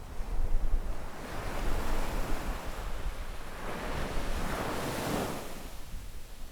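Small sea waves breaking and washing up a sandy beach: one wash swells from about a second in, is loudest a little past the middle, and fades near the end. A low wind rumble on the microphone runs underneath.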